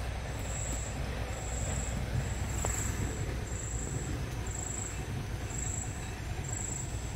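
An insect chirping in short, high-pitched pulses about once every second, over a steady low rumble. About three seconds in there is a single faint knock, a stone striking tree bark.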